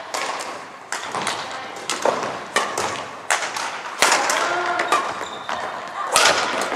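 Badminton rackets striking a shuttlecock in a rally: a quick run of sharp smacks, several a second, from this court and the neighbouring ones, each echoing in a large sports hall.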